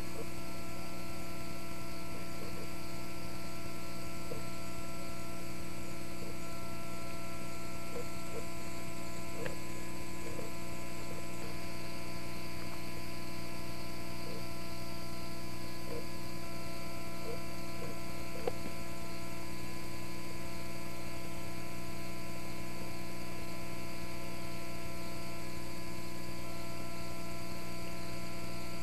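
Steady electrical mains hum, a stack of unchanging tones at one level throughout, with a few faint short chirps scattered through the middle.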